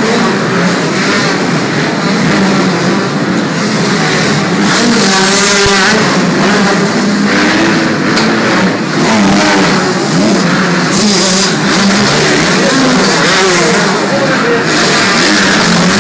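Several motocross bikes riding laps, their engines revving up and down with the throttle, the pitch of the overlapping engines rising and falling.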